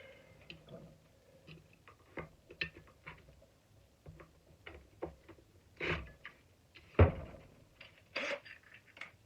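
Scattered clicks, taps and knocks of a screwdriver working at screws in a shop vacuum's plastic housing, with one sharp knock about seven seconds in.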